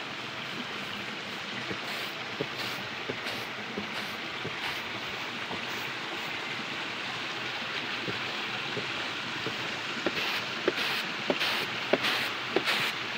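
Steady rushing of running water from a small hillside stream, with a run of crunching footsteps in dry grass from about ten seconds in.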